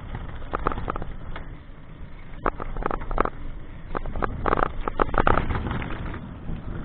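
Steady low rumble of wind and movement on the microphone, with irregular clattering knocks and rattles from a camera travelling along a bumpy village road. The clatter is thickest in the middle of the stretch.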